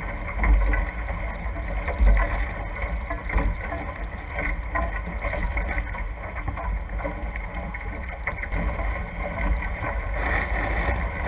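Wind buffeting the microphone of a bow-mounted camera on a NACRA F18 catamaran sailing fast, as a heavy, gusting rumble, over the rush and hiss of water and spray along the hulls. The spray hiss grows louder near the end as the windward hull throws up more water.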